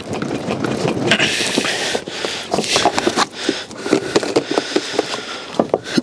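Water sloshing and splashing inside a capped plastic cassette toilet waste tank as it is shaken about to rinse it out, with knocks from the tank.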